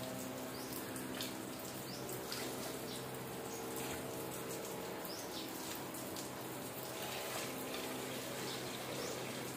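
Garden hose spraying a thin jet of water onto a rubber patio mat: a steady splashing hiss, with a steady low hum underneath.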